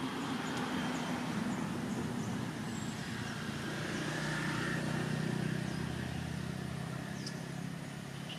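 A motor vehicle's engine hum passing by, swelling to its loudest about midway and then fading, with a few faint high chirps over it.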